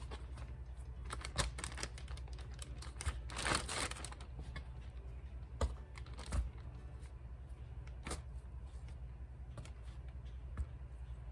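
Faint scattered clicks and rustles of a plastic gallon bag being handled as pieces of canned biscuit dough are dropped into it a few at a time, with a longer crinkle of the plastic about three and a half seconds in.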